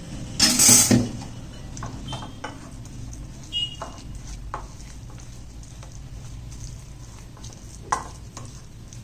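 Thick, wet spice paste being stirred in a bowl with a little water, with squelching and scraping and a few clinks against the bowl. A short, loud rush of noise comes about half a second in.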